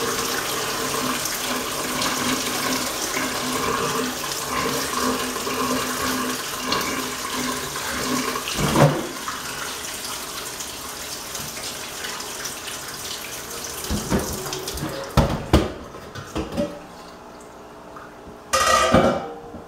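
Brown water that driftwood was boiled in, poured from a large enamel pot into a stainless steel sink. It splashes steadily for about the first nine seconds, then thins to a trickle with a few sharp knocks. A brief loud burst comes near the end.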